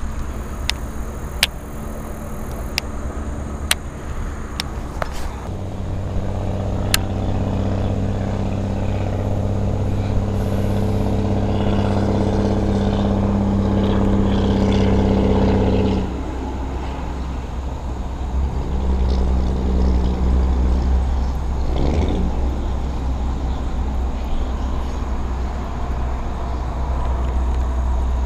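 Steady engine drone with an even hum, starting about five seconds in and cutting off abruptly about ten seconds later, over a constant low rumble. A few sharp clicks in the first few seconds, and a fainter hum again near the middle of the second half.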